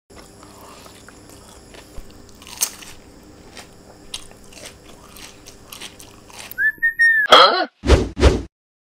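Close-up crunching and chewing as a raw-looking okra pod is bitten and eaten, with scattered sharp crunches. Near the end a short whistle glide is followed by several loud cartoon sound effects.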